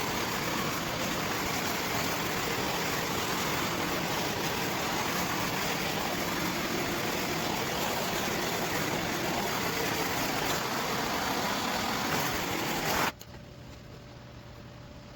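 Heat gun blowing steadily, then switched off suddenly about 13 seconds in, leaving a much fainter hum.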